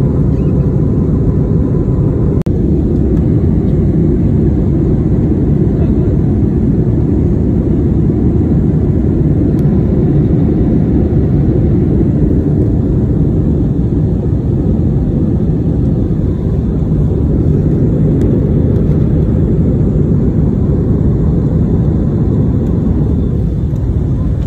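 Jet airliner cabin noise: a steady, loud low rush of the engines and airflow, heard from inside the passenger cabin.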